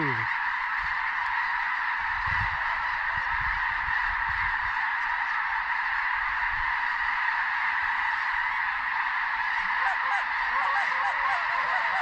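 A huge flock of snow geese calling all at once, a continuous dense din of high honks and yelps. Closer individual calls stand out near the end.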